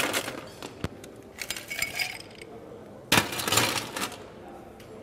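Ice cubes clattering and clinking in a glass cocktail mixing glass in a few short bursts, the loudest about three seconds in.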